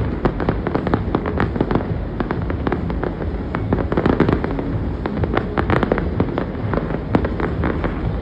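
Aerial fireworks display: shells bursting and crackling in a dense, unbroken run of sharp bangs, several a second, over a low rumble.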